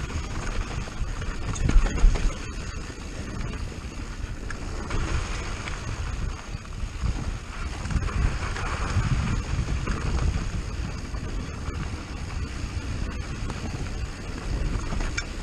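Wind noise on the camera microphone over the rolling rumble of a Commencal Clash downhill mountain bike descending a loose dirt-and-rock trail, with knocks and rattles from the bike over bumps. A louder thump comes about two seconds in.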